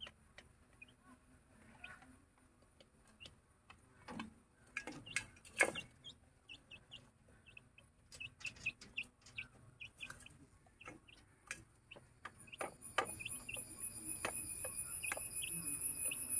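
One-month-old Aseel chicks and a hen peeping and clucking softly, with many sharp taps and a few louder clatters from pecking and scratching at feed in a metal basin. About three-quarters of the way through, a steady high ringing tone rises in and grows louder.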